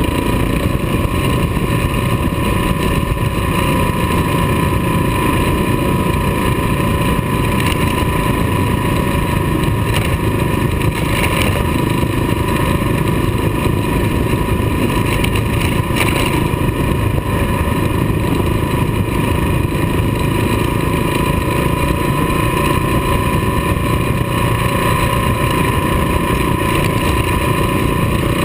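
Kawasaki KLR dual-sport motorcycle's single-cylinder four-stroke engine running steadily at cruising speed, heard from the rider's position, mixed with wind and tyre noise on a gravel road. A thin steady whine sits above the engine, and there are a couple of brief ticks.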